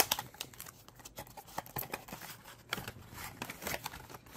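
A small cardboard product box being opened by hand: the end flap snaps open and the paper leaflet and clear plastic insert are slid out, giving a string of sharp clicks, taps and scrapes of cardboard and plastic, loudest right at the start.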